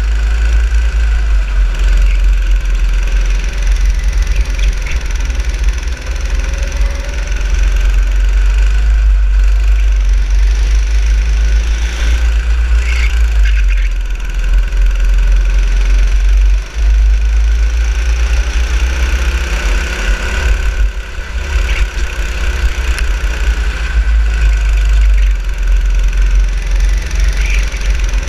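Go-kart engine heard from on board at racing speed, running loud and continuous with a heavy low rumble. Its pitch rises and falls as the throttle opens and closes through the corners.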